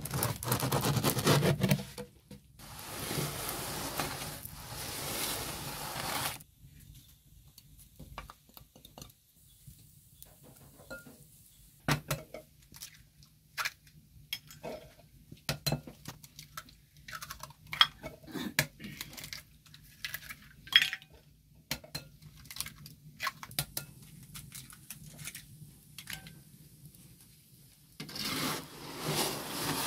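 Kitchen handling sounds: sparse clinks, taps and knocks of eggs being cracked and stirred into a glass bowl among ceramic dishes. A few seconds of steady, harsh noise at the start and again near the end.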